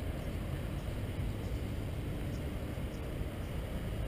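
Steady low rumble of busy road traffic, with no single vehicle standing out.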